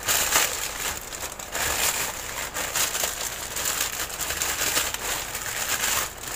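Thin white plastic shopping bag crinkling and rustling as hands open it and pull out a plastic-wrapped pack of tissues: a continuous, irregular crackle.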